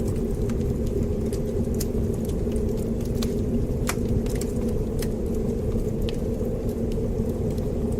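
Wood fire burning in a fireplace: a steady low rumble of the flames with scattered sharp crackles and pops, a few each second, one louder pop about four seconds in.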